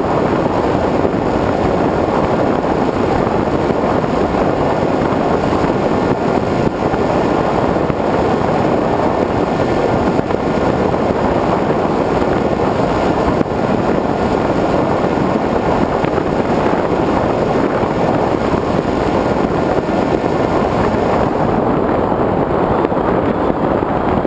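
Steady, loud rush of airflow over a GoPro Hero2 riding on a Multiplex Easystar RC plane in flight, mixed with the drone of the plane's pusher brushless electric motor and small propeller.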